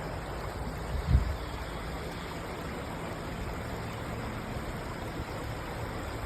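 Creek water running steadily over rocks, with a brief low thump about a second in.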